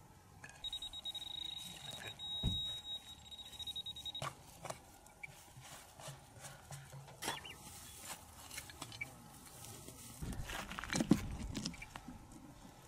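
Dry soil and grass scraped and rustled by hand as a deminer digs out around a buried landmine, with scattered clicks and knocks and a sharp knock about eleven seconds in. A thin, steady high-pitched beeping tone sounds for about three and a half seconds just after the start.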